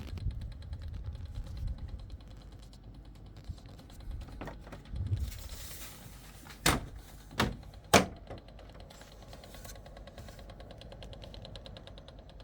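The indoor unit of a newly installed 2.5 kW Mitsubishi MSZ-AP split-system air conditioner is rattling with a rapid, steady run of fine ticks. Three sharp knocks come about two-thirds of the way through and are the loudest sounds.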